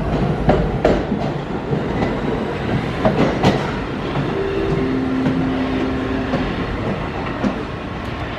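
R46 subway cars departing a station, wheels clacking over rail joints with a steady rumble that grows slightly fainter as the train pulls away. A steady two-note hum sounds from about four to six and a half seconds in.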